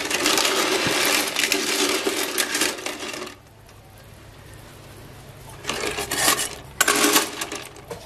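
Metal ladle stirring blood cockles being blanched in a pot of hot water: the shells clatter and clink against each other and the aluminium pot. The stirring stops about three seconds in, and two short bursts of clatter follow near the end.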